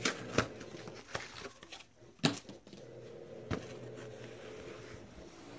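Hands unwrapping and unfolding a yoga towel: packaging and cloth rustling, with a few sharp clicks and taps, the loudest about two seconds in. A faint steady hum runs underneath.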